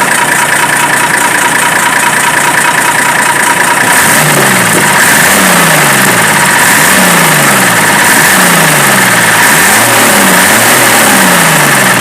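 Chevrolet D60 truck's diesel engine running, back in life after four years standing; from about four seconds in it is revved again and again, its pitch repeatedly rising and falling.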